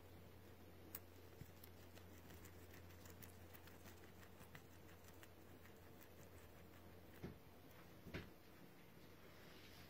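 Guinea pig chewing leafy greens: faint, quick crunching clicks, a few of them louder, over a steady low hum.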